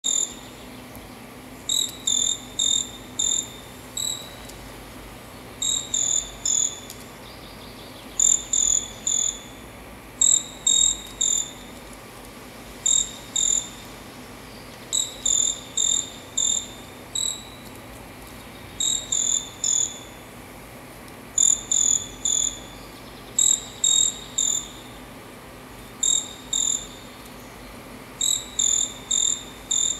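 Short-tailed pygmy-tyrant (caçula) calling: short runs of two to five high, clipped notes, repeated about every two seconds.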